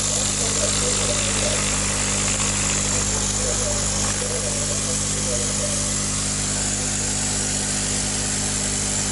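Electric air pump for aeration humming steadily with a continuous hiss, supplying oxygen to a shallow basin of eel fry, which needs it running around the clock.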